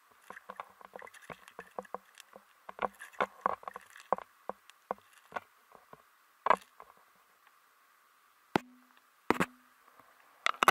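Irregular clicks and knocks picked up by an underwater camera under the ice, thick in the first half, then a few louder single knocks near the end.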